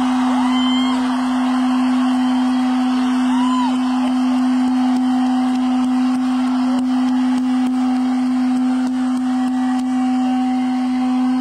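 Concert crowd cheering, with a few people whistling, rising and then holding their pitch, in the first few seconds, over a single low note held steady from the stage's sound system.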